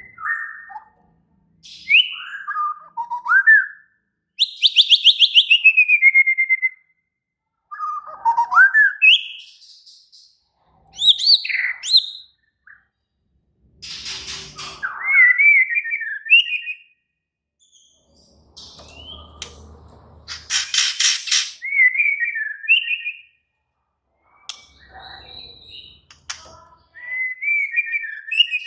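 White-rumped shama singing an agitated fighting song: bursts of rich whistled phrases with rising and falling slides, separated by short pauses, with harsh rapid rattles about five seconds in and again past twenty seconds.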